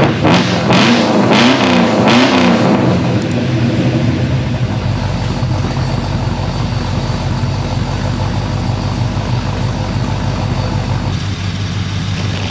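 Chevrolet Performance ZZ350 small-block V8 with a Howards hydraulic roller cam, blipped about four times in quick succession so the pitch rises and falls, then settling into steady running.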